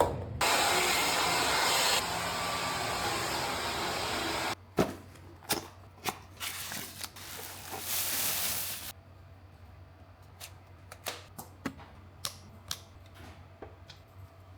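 SAMONO SW-HD30 1200 W folding hair dryer blowing with a steady rushing noise that drops in level about two seconds in and cuts off suddenly after about four and a half seconds. Then a few sharp clicks, a shorter blast from the dryer, and scattered faint clicks and taps.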